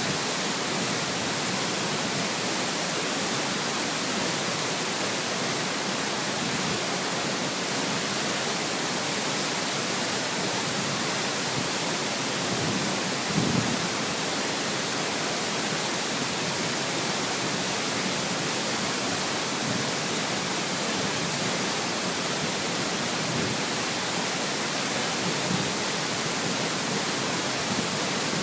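Waterfall pouring: a steady, even rush of falling water, with a brief louder bump about halfway through.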